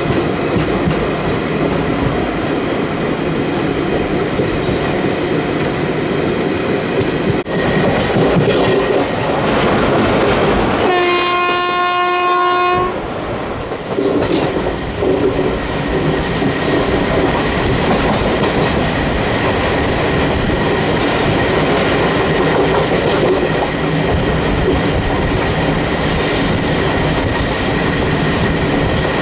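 Steady running noise of a train on the track, with the WCAM electric locomotive's horn sounding one held blast of about two seconds about eleven seconds in.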